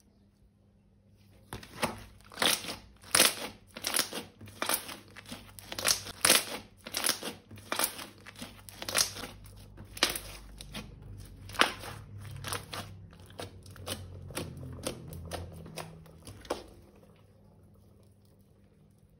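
Crisp crinkling and crackling from slime-making materials squeezed and worked by hand close to the microphone, in irregular bursts about two a second. It starts about a second and a half in and stops near the end.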